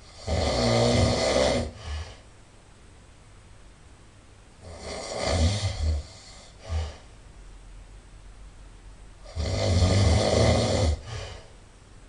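A person snoring: three loud snores about four and a half seconds apart, each followed by a short, fainter one.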